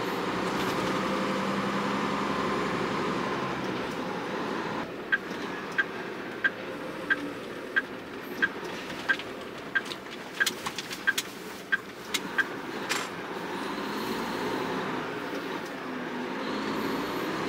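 Inside a Hino truck cab: the diesel engine running on the move, with the turn-signal indicator ticking about one and a half times a second for around seven seconds while the truck turns at an intersection. The engine pulls again near the end.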